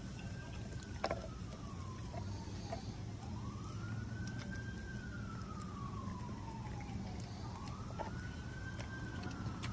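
Emergency vehicle siren wailing, slowly rising and falling about every four seconds, over a steady low hum. A few soft clicks come from a dog licking and chewing raw meat.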